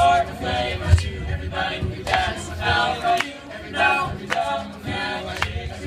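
Young men's a cappella group singing in close harmony through microphones and a PA system, with a few sharp clicks among the singing, the loudest about a second in.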